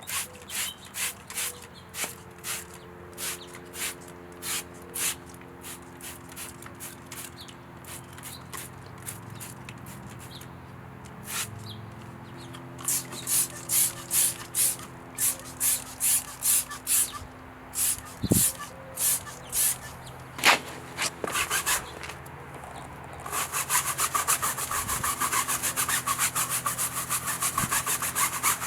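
Stiff brush scrubbing in regular back-and-forth strokes, about two a second. About two-thirds of the way through, the scrubbing becomes faster and continuous.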